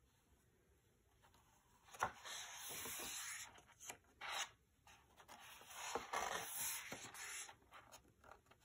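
Faint rustling and rubbing of the stiff paper pages of a hardcover picture book as they are turned and smoothed flat by hand: a click and a papery rub about two seconds in, a short brush around four seconds, and another longer rub around six seconds.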